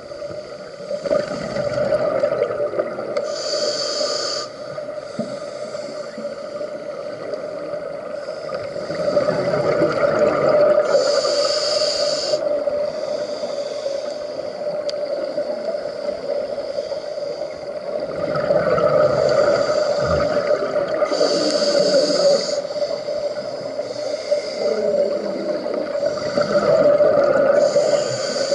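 Scuba breathing through a regulator, heard underwater from the diver holding the camera: a hissing inhale every several seconds, each followed by a longer gurgling rush of exhaled bubbles. A steady hum runs underneath.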